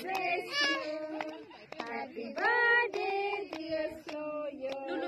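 A group of children and women singing together, with hand claps landing about twice a second.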